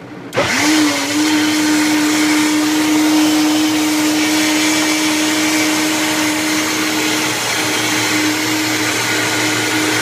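High-powered countertop blender switched on about half a second in, its motor spinning up quickly, then running at a steady high speed as it blends a smoothie.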